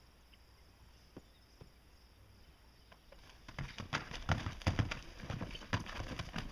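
A mare's hooves clattering in quick, irregular steps, starting about three and a half seconds in after a quiet stretch with a couple of faint knocks.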